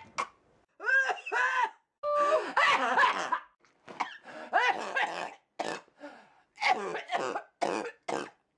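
A run of short coughs, throat-clearing and groan-like vocal noises, about a dozen bursts with brief gaps between them.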